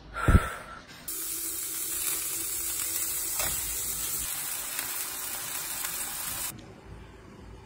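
A short thump, the loudest sound, then raw chicken breasts sizzling in oil in a hot frying pan: a steady hiss that starts abruptly about a second in and cuts off near the end.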